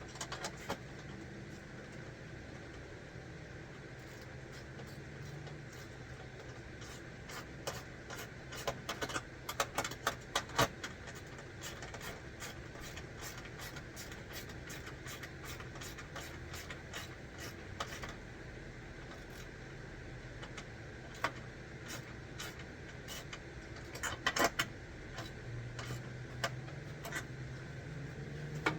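Scattered light clicks and knocks of hand work on metal mounting hardware, bunched into quick runs about a third of the way in and again near the end, over a steady low hum.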